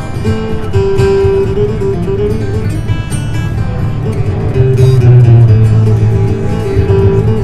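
Solo steel-string acoustic guitar playing: picked notes over low bass notes, with a loud, low bass note held about four and a half seconds in.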